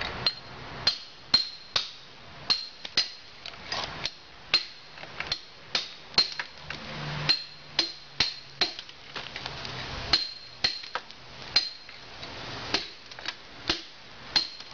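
Hammer striking a steel chisel fitted with a hand guard, cutting old grout out of the joints of a stone wall. Sharp metallic strikes at an uneven pace, about two a second, each with a brief ring.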